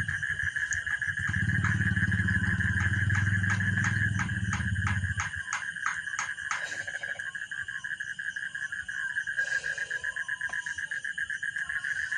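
Steady, pulsing high trill of night insects, with a low motor engine running underneath that stops about five and a half seconds in; a quick run of sharp clicks comes in the first half.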